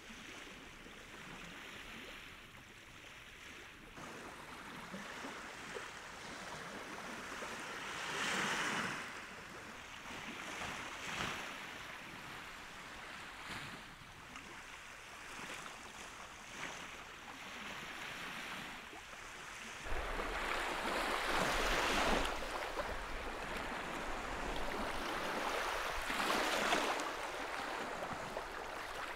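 Lake Baikal waves washing onto the shore, several surges rising and falling. Wind buffets the microphone from about two-thirds of the way through.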